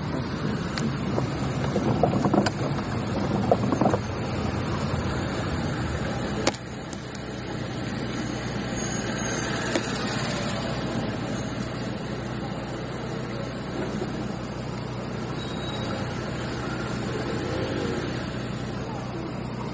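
Road noise inside a car's cabin: the engine running with a steady low hum and tyres on wet pavement making an even hiss. A few knocks in the first four seconds and a sharp click about six and a half seconds in.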